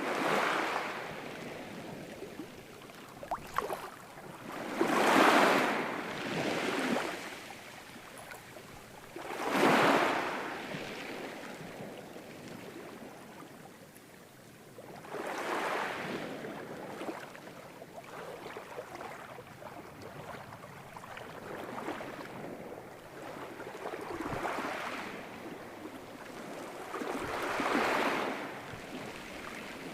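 Ocean waves breaking and washing up the shore, each surge swelling and then ebbing away every few seconds. The loudest breakers come about five and ten seconds in.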